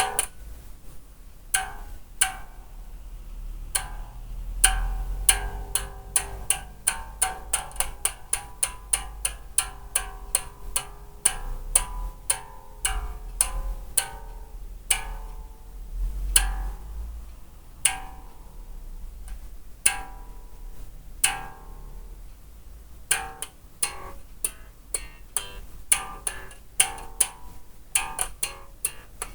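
Unamplified five-string electric bass being plucked over and over, single notes and quick runs of several plucks a second, each with a sharp attack and a short ring, as the old strings are checked by ear for tuning.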